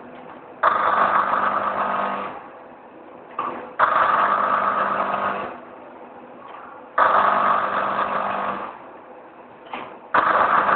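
Auger filler motor of a semi-automatic flour packing machine running in short cycles, each run dosing one 500 g portion of flour. It runs four times, each for about a second and a half, starting about three seconds apart, with a brief short sound just before most runs.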